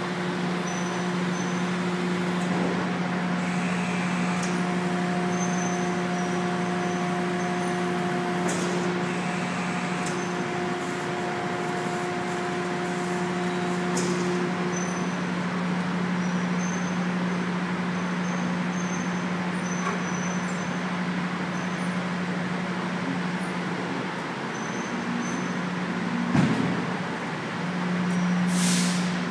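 Steady drone of industrial plant machinery: a constant low hum with a higher tone that drops out about halfway. A brief hiss comes near the end.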